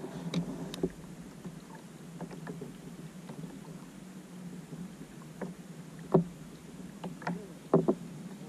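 Sea water lapping against a plastic fishing kayak's hull, with a few sharp knocks and slaps on the hull, the loudest about six seconds in and a cluster near the end.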